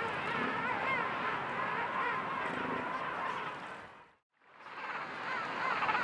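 Continuous chatter of many overlapping animal calls from a penguin and fur seal colony, high-pitched and wavering. The sound fades out to silence a little after four seconds and fades back in within about a second.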